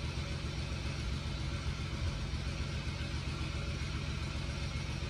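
Steady low background rumble with an even hiss above it, unchanging and with no distinct events.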